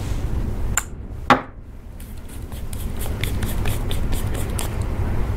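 A lipstick case being handled and opened, with small scattered clicks and taps. A sharp knock comes about a second in, over a steady low rumble.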